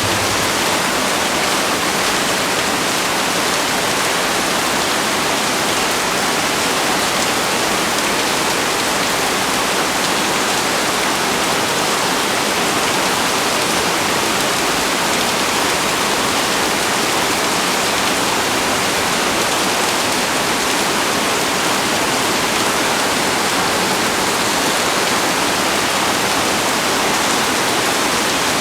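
Heavy rain pouring down steadily, a dense, even hiss with no breaks.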